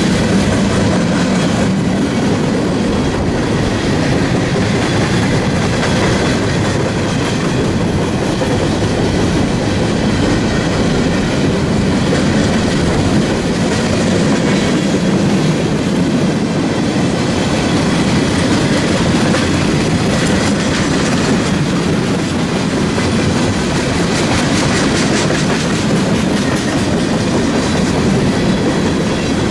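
Empty flatcars of a freight train rolling past close by: a steady, loud rumble and clatter of steel wheels on the rails.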